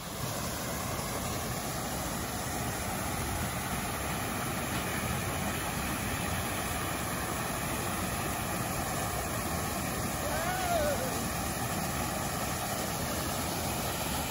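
Pool waterfall feature running, a steady rush of falling water, with a short rising-and-falling tone about ten and a half seconds in.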